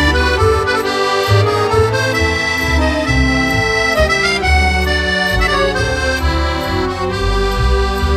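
Instrumental music led by accordion, with held melody notes over a repeating bass line.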